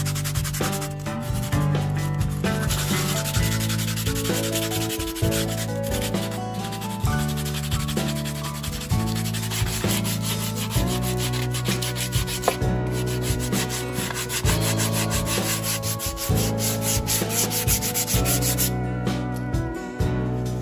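Sandpaper rubbed by hand over a hard black plastic fender in quick back-and-forth strokes, smoothing the plastic for repair. Steady low notes changing every second or so run underneath.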